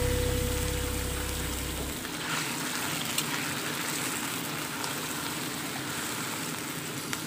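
Broth simmering and sizzling in a wok around freshly added shredded squash, a steady fizzing hiss with faint crackles, and a few light scrapes of a metal spatula stirring.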